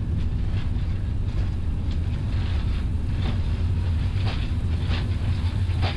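Airbus A350-900 accelerating down the runway on its takeoff roll, heard from the flight deck: a steady low rumble of the Rolls-Royce Trent XWB engines at takeoff thrust and the wheels on the runway, with light knocks scattered through it.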